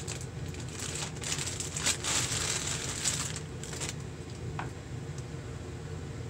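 Clear plastic bag crinkling and rustling with many small crackles as an all-in-one liquid cooler is drawn out of it, dying down after about four seconds. A light click comes near the end, over a steady low hum.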